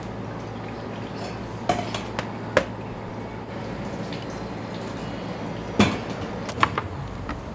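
Clinks and knocks of dishes and utensils in a restaurant kitchen: a few sharp strikes about two seconds in and another cluster near the end, over a steady low hum.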